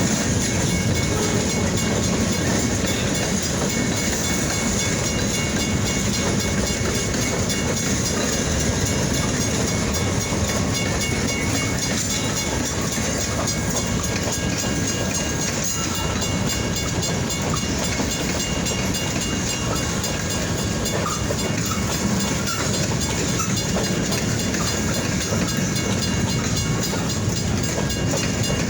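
Freight train rolling past on the rails, a steady, unbroken rolling noise of wheels on track.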